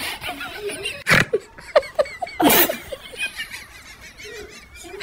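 People laughing in short bursts, with two loud outbursts about a second and two and a half seconds in.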